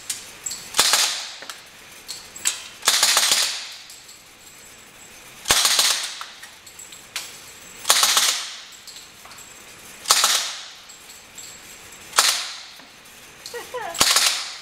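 Suppressed submachine gun firing on an indoor range: about seven loud reports, one every two seconds or so, each trailing off in the range's echo.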